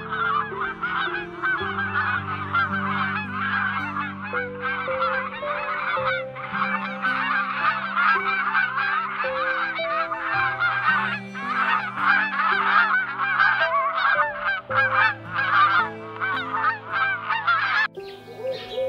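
A large flock of geese honking continuously, many calls overlapping, over background music with held low notes. The honking stops suddenly about a second before the end.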